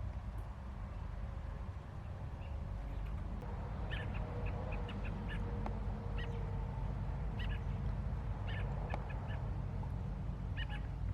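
Birds calling in short, repeated squawks that begin about four seconds in and come in clusters, over a steady low rumble.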